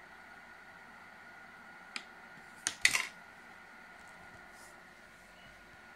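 Tabletop air hockey game with its air-blower fan humming steadily. A plastic mallet clicks against the puck once about two seconds in, then a quick clatter of puck against mallet and rails comes a little later.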